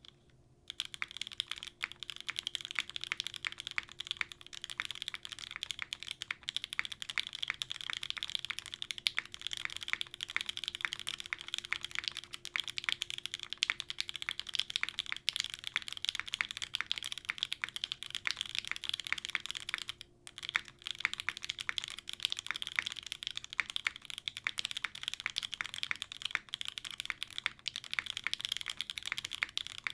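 Continuous typing on a custom PC Kohaku mechanical keyboard with lubed Banana Split linear switches on an aluminium plate, gasket leaf-spring mounted with no dampening: a dense, fast stream of keystrokes that starts about half a second in, with a brief pause about two-thirds of the way through.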